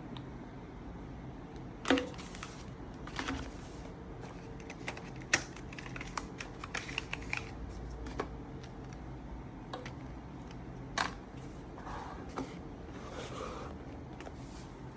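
Scattered clicks, taps and knocks of a new Samsung Galaxy A26 and its packaging being handled, with sharper knocks about 2, 5 and 11 seconds in, a quick run of small taps in the middle, and a soft rustle near the end.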